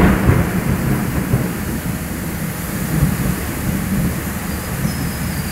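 Heavy thunderstorm rain pelting the car's roof and windshield, heard from inside the car, with a low rumble of thunder that is loudest at the start and then eases into a steady downpour.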